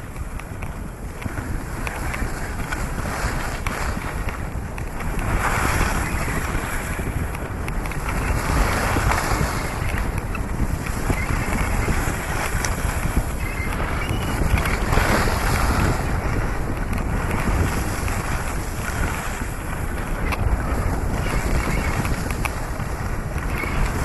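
Wind buffeting a camera microphone as a rushing noise that swells and eases every few seconds.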